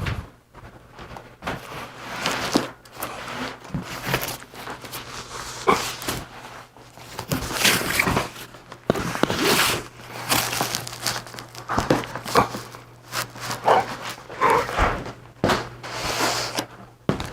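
Handling noise as a heavy boxed machine is moved: irregular crinkling and scraping, many sharp knocks, and footsteps, over a steady low hum.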